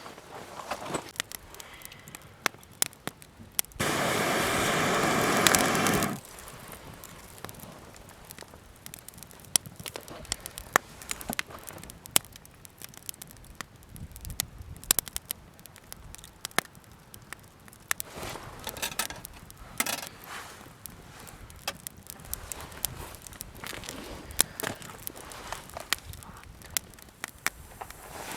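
Wood campfire crackling, with sharp pops and snaps scattered throughout. About four seconds in comes a loud hiss that lasts about two seconds, then stops suddenly.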